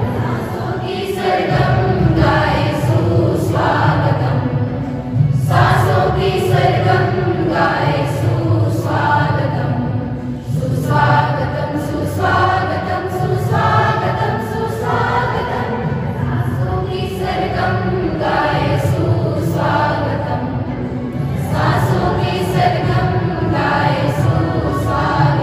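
A group of women's and men's voices singing a song together in chorus, line after line, with brief breaks between the sung lines.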